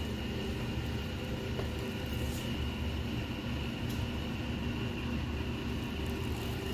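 Steady mechanical hum of running machinery, with several constant low tones and a faint steady high whine, and a few faint ticks.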